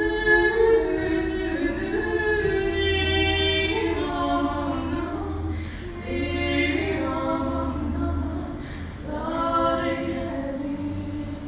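Two women singing a slow song together in two-part harmony, holding long notes.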